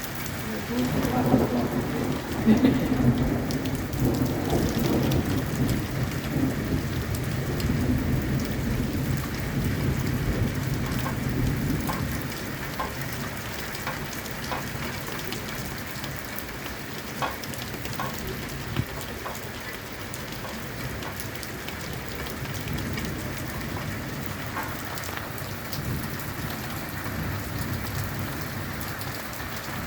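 A thunderclap rumbling over steady heavy rain. The thunder starts about a second in, is loudest over the next few seconds and rolls away over about ten seconds, leaving the rain hiss with scattered drops ticking.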